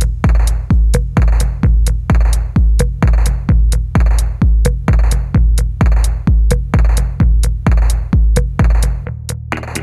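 Background electronic music with a heavy drum-machine kick on a steady beat, a little over two beats a second, with sharp ticks between. The kick drops out near the end.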